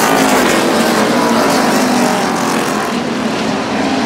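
NASCAR Cup stock cars' V8 engines racing past on the circuit: engine notes glide down in pitch near the start, then several engines run together in a steady, loud drone.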